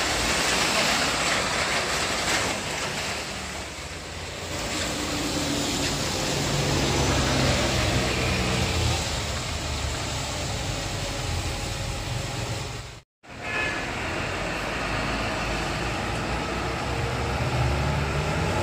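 Road traffic on a rain-wet road: tyres hissing on the wet asphalt, joined from about five seconds in by the low drone of passing bus and truck engines. The sound cuts out for a moment about two-thirds of the way through.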